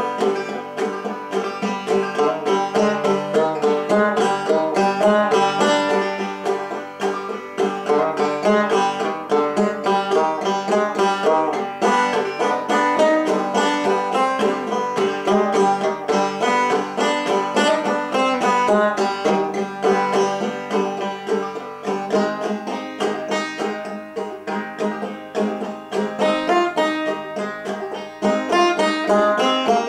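A resonator banjo played solo, a tune of quick picked notes running on without pause.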